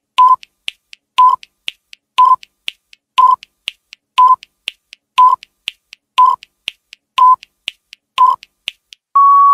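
Countdown timer sound effect: a short beep with a sharp tick once a second and a fainter tick between each. Near the end it gives one long steady beep as the count reaches zero.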